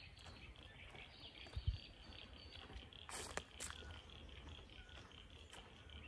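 A high-pitched insect chirring, pulsing at an even rate of several pulses a second. Low footstep thuds are heard, the loudest about a second and a half in, with a few sharp clicks around halfway.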